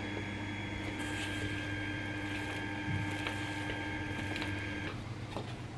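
A pink spatula stirring flour into cookie dough in a stainless steel mixing bowl, with a few faint soft scrapes. Over it runs a steady machine-like hum with a faint high whine, which cuts off about five seconds in.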